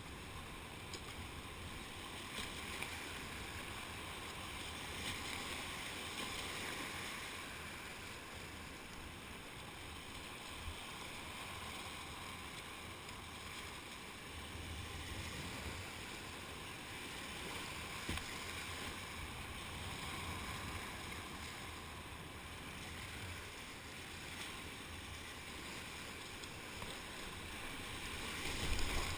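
Rushing whitewater of a river rapid, a steady churning rush with water splashing around a kayak as it runs the rapid, and a louder thump right at the end.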